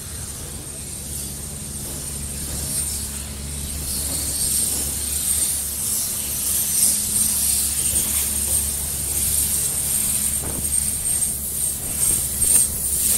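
Passenger train running, a steady low rumble under a rushing hiss that grows louder.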